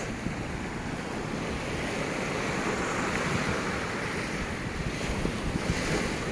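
Small ocean waves washing onto a sandy beach, the surf hiss swelling and easing in the middle, with wind buffeting the microphone.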